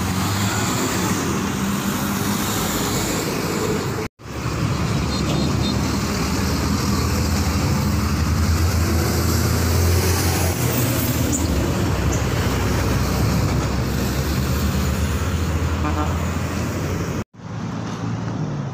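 Steady outdoor road traffic noise, a dense rumble of passing vehicles, that breaks off for an instant twice, about four seconds in and near the end.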